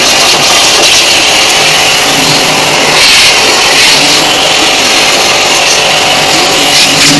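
Electric pressure washer running, its jet of water hissing and spattering against the plastic blower fan of an air conditioner's indoor unit.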